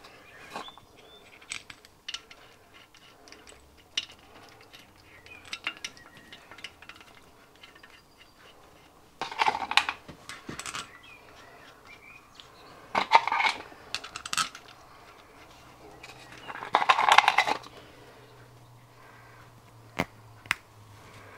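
Small steel nuts and bolts clinking and scraping as they are picked up and run on by hand to fix a brass valve body to a steam engine crankcase, with three louder clatters of metal parts.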